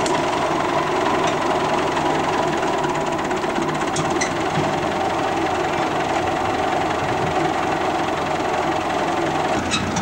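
Farm tractor engine running steadily close by, at an even pitch.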